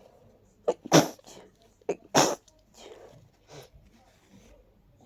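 A person with a head cold sneezing twice into a tissue, about a second apart, each sneeze preceded by a short catch of breath. Fainter sniffly breaths follow.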